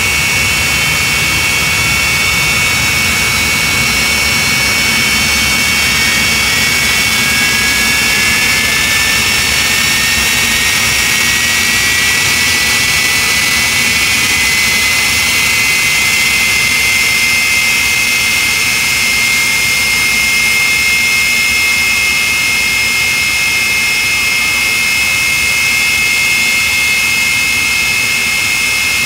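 Jet engine of the AfterShock jet-powered fire truck running loud and steady with a high whine; about seven seconds in, a second whine rises in pitch and then holds.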